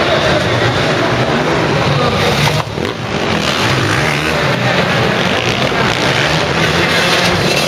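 Several motocross bikes running and revving in a large indoor arena, their engine noise dense and continuous, with a short dip in level about two and a half seconds in.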